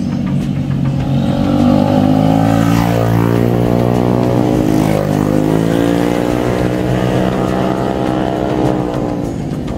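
A motor vehicle engine running close by, its pitch dipping and rising about three and five seconds in, as when revving or passing.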